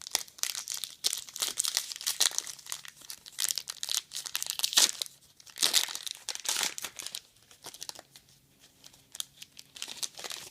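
Trading-card pack wrapper being torn open and crinkled: dense crackling and tearing for about the first seven seconds, then quieter, scattered rustles.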